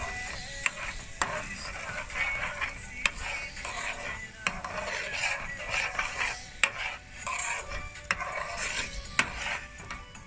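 A spoon stirring thick curry masala in a pan, with irregular clicks and scrapes against the pan over a light sizzle, as cream is worked into the fried masala.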